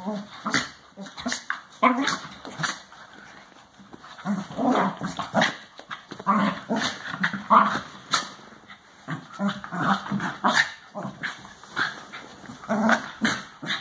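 An adult West Highland white terrier and a Westie puppy playing, with dog vocalizations in short, irregular bursts. Sharp clicks and knocks are scattered throughout.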